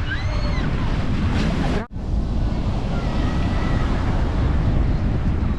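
Wind buffeting the microphone over the steady wash of surf on a beach, cut off sharply for a moment about two seconds in, with faint distant voices.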